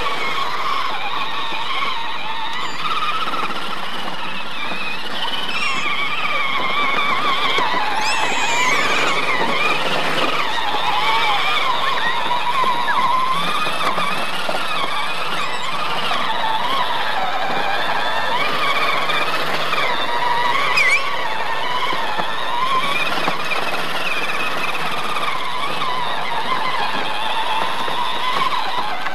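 Battery-powered ride-on toy truck's electric motor and gearbox whining as it drives over dirt, the whine wavering up and down in pitch as the load changes.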